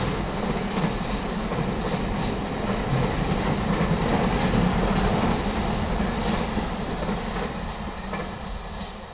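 Freight train of enclosed autorack cars rolling past, a steady noise of steel wheels on the rails. It fades over the last couple of seconds as the end of the train goes by.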